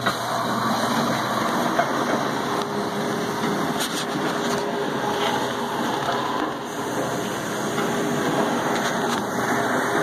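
Whirlpool dishwasher starting its cycle as the timer dial is turned: a steady rush of water inside the tub with a steady motor hum, coming on suddenly at the start.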